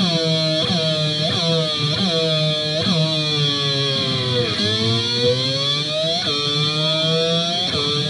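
Electric guitar played with a glass slide, imitating the sound of a naturally aspirated V8 Formula 1 engine. The pitch holds and then jumps sharply about once a second, like gear changes. About four and a half seconds in it falls in a long dip, then climbs again.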